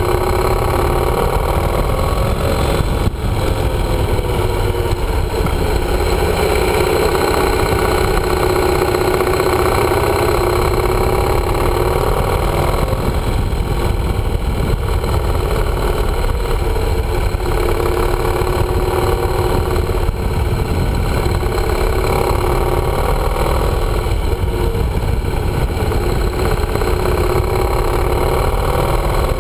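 Yamaha motorcycle engine running under way, its pitch rising and falling gently with the throttle, over a steady rush of wind noise.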